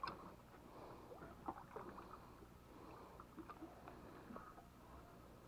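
Near silence: a faint low hum with a few light, scattered clicks.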